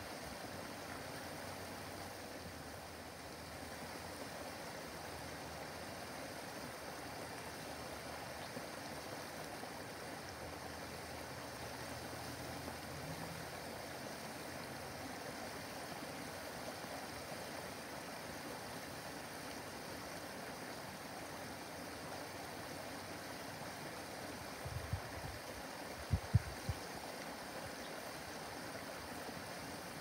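Small backyard waterfall spilling over rocks into a pond: a steady rush of running water. A few dull low thumps come a little before the end.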